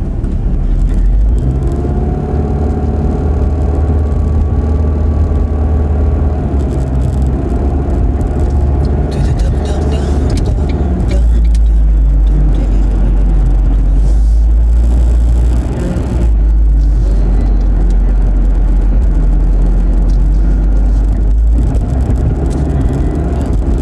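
Car driving, heard from inside the cabin: a loud, steady low rumble of engine and road noise, picked up by a phone on a windshield mount.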